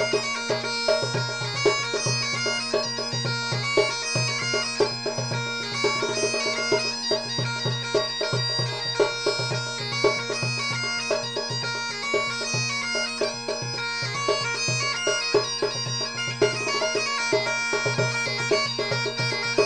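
Background music: a melody played over steady drone notes, with frequent short percussive taps.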